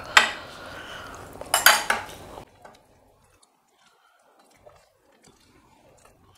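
A metal spoon clinking against stainless steel plates: one sharp ringing clink just after the start and a second cluster of clinks under two seconds in, after which the sound drops almost to silence.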